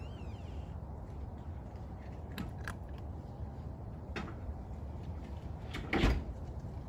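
A cat eating from a metal bowl: scattered small clicks and crunches, and one louder knock about six seconds in, over a steady low rumble.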